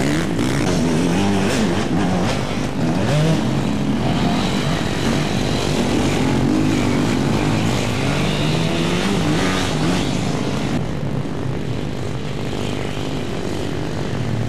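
Enduro dirt bike engines revving on and off the throttle as the bikes pass close by. Their pitch keeps rising and falling, with more than one engine heard at once.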